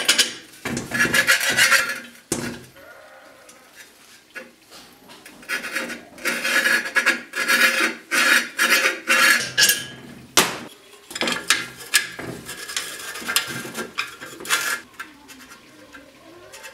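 Hand scraping or rubbing on metal parts in quick repeated strokes, coming in three spells with short pauses between, with a faint ring under the strokes and sharp clinks here and there.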